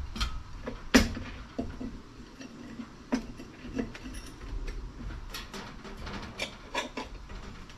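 Scattered light clicks, taps and scrapes from a length of 2-inch steel box tubing being handled against a steel workbench, with a sharper knock about a second in.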